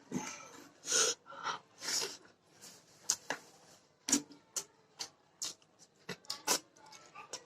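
Close-up eating sounds: wet chewing and lip smacks, with many short sharp mouth clicks and a few breathy hisses through the nose.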